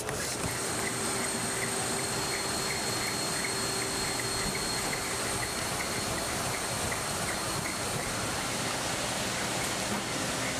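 Treadmills running: a steady whir and hiss from their belts and motors, with faint steady tones over it.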